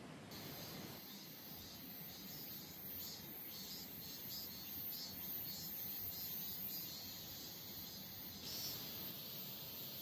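Night insects, crickets, chirping high-pitched in pulses about twice a second, over a steady low rush. The chirping sets in suddenly just after the start.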